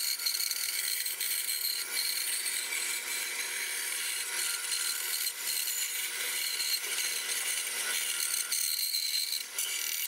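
Small bandsaw running steadily as its blade cuts a thin spalted maple blank, an even hiss with a faint high whine.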